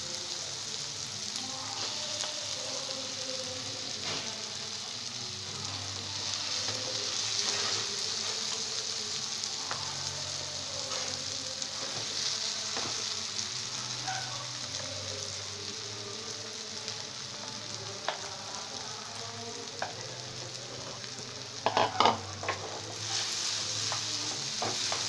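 Chopped onions and tomatoes sizzling in oil in a non-stick frying pan while mashed potato is stirred in with a flat spatula, which scrapes the pan with light clicks. There are a few louder knocks near the end.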